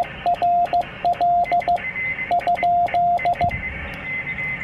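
Morse code sidetone from an Icom IC-703's memory keyer: a steady tone keyed in dots and dashes spelling out 'QRL?', the CW call asking whether the frequency is in use before transmitting. A click comes with each dot and dash, and the sending stops about three and a half seconds in.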